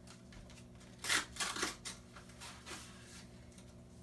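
Paper or plastic packaging rustling and crinkling as it is handled, in a few short bursts, the loudest about a second in.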